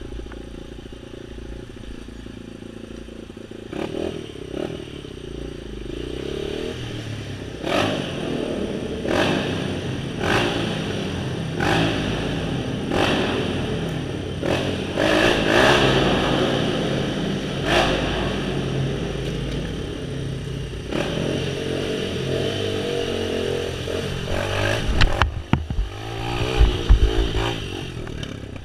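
A small off-road vehicle's engine running and changing revs as it rides through a shallow creek, with sharp knocks and splashes every second or two and heavier low thumps near the end.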